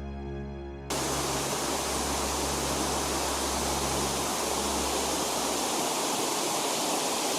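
Waterfall rushing: a steady, dense roar of falling water that cuts in suddenly about a second in, with the low notes of fading background music underneath for the first few seconds.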